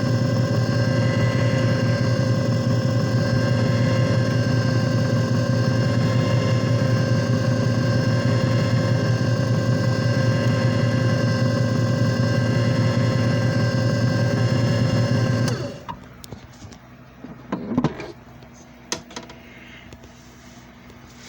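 JFJ Easy Pro disc repair machine running with a steady motor hum, cutting off suddenly about fifteen seconds in, followed by a few clicks and knocks.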